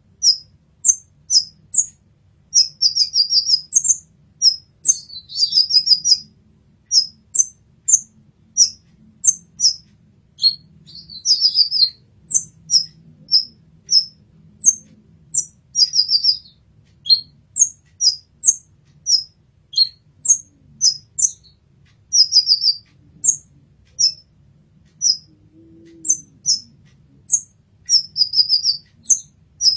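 Kolibri ninja sunbird singing: a steady run of short, very high-pitched chirps about two a second, broken every few seconds by a quick twittering trill.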